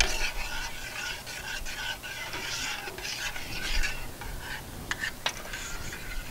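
A long-handled spoon stirring barbecue sauce in a stainless steel stockpot, scraping around the pot, with a couple of sharp clicks about five seconds in.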